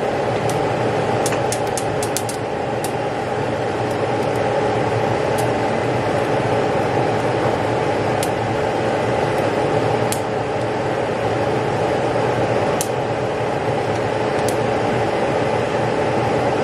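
Steady rushing noise of gas stove burners running with chile peppers charring directly on the grates over the flames, with occasional sharp crackles.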